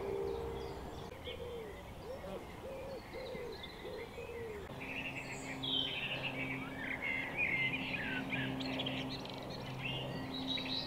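Birdsong outdoors: a bird gives a run of about six low cooing or hooting notes between one and five seconds in, and other birds chirp and sing higher up through the rest. A low steady hum comes in about five seconds in.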